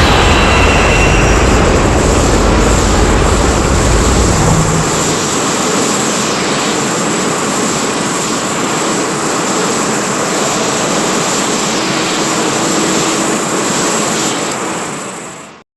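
Kaiju monster roar sound effect: one long, loud, rough, noisy roar. The deep rumble under it drops away about four seconds in, and the roar fades and cuts off just before the end.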